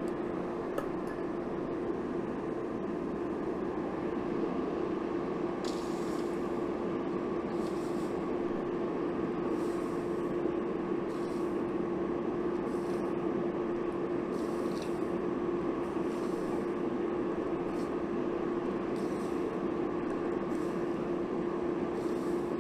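Steady drone of the running forge, with a constant low hum. From about six seconds in, short hisses come every second or two as the hot steel billet is dipped in the pot.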